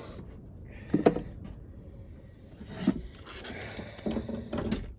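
Camp cookware being handled: a sharp knock about a second in, then clattering and rustling near the end, over a steady low rumble.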